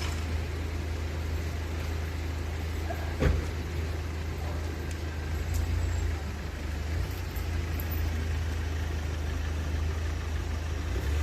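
Steady rain falling, an even hiss, over a steady low rumble, with one sharp knock about three seconds in.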